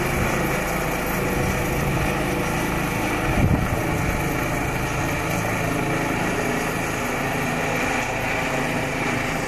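Eurocopter EC135 trauma helicopter flying low overhead as it departs: steady rotor and turbine noise, with a brief louder rumble about three and a half seconds in.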